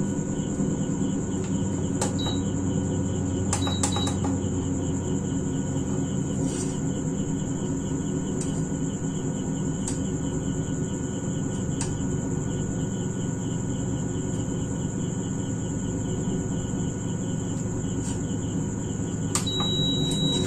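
Prestige PIC 16.0 induction cooktop running under a steel pot of water: a steady hum from its cooling fan and coil with a thin high whine above it, and faint clicks every couple of seconds. The touch panel beeps briefly a few times as buttons are pressed, with a longer beep near the end. The freshly repaired unit is now working and heating the pot.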